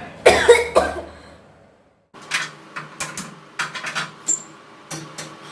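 Two loud breathy vocal bursts from a person straining to sneeze, fading away within the first second. After a sudden drop to silence about two seconds in, a scatter of short sharp sounds and breaths follows at a lower level.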